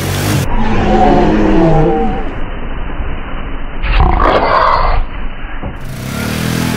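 Polaris Sportsman 450 ATV's single-cylinder engine revving hard through mud, its pitch rising and falling. A loud, rough burst of noise about four seconds in as the quad rides up into a tree, then the engine runs on.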